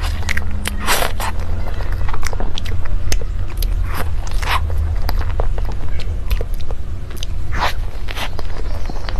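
Close-miked eating of a durian mille crepe cake by hand: soft bites into the creamy layers with wet chewing and lip-smacking clicks. A steady low hum runs underneath.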